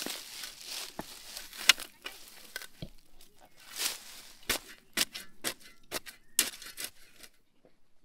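A steel shovel digging into grassy turf: a series of sharp crunches and tearing as the blade cuts through root-bound soil and lifts a clod. The sounds stop about seven seconds in.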